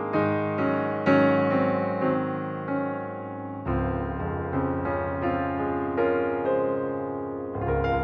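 Background music: piano playing a steady series of sustained notes over a soft bass.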